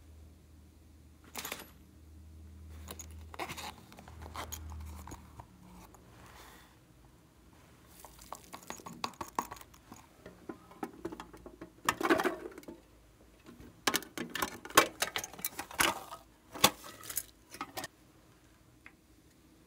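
Small hard pink chunks dropped into a glass dish of slime and glitter, clicking and clattering against the glass. A few scattered knocks come in the first seconds, and the clatter is densest in the second half before it stops.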